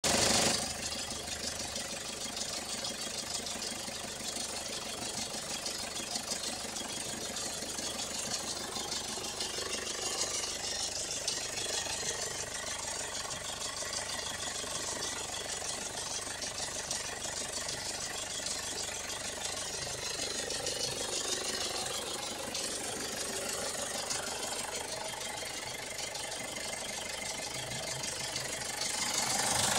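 Mazda BT-50's 3.0-litre four-cylinder DOHC 16-valve direct-injection diesel engine idling steadily, growing louder near the end.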